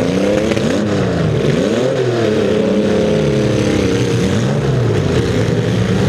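Demolition derby car's engine revving up and down again and again as the car pushes and backs around the arena, heard loud and close from on board.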